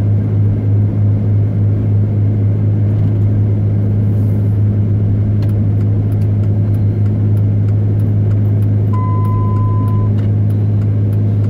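Pickup truck's engine and road noise droning steadily inside the cab while driving, with a short steady beep about nine seconds in.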